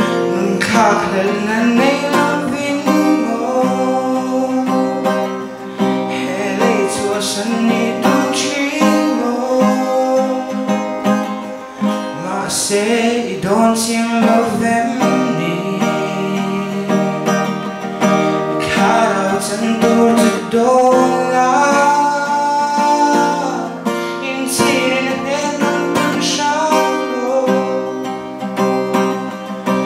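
A teenage boy singing into a microphone while strumming an acoustic guitar; his voice, at fifteen, is not yet mature.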